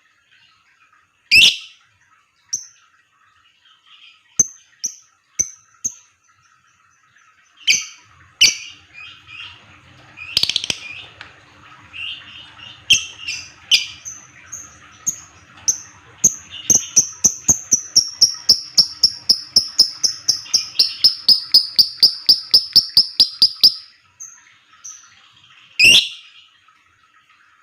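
Lovebird calling: scattered sharp, shrill chirps, then a long rapid chatter of about five repeated notes a second lasting some eight seconds and slowly falling in pitch, the long 'ngekek' trill of a lovebird in breeding condition. One more loud shrill call comes near the end.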